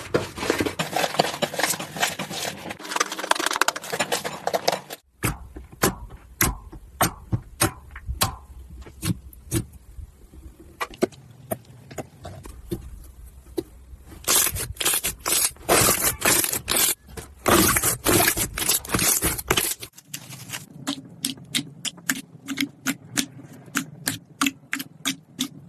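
Hands squishing slime, making a run of quick wet clicks and pops. The sound changes abruptly twice, about five and twenty seconds in.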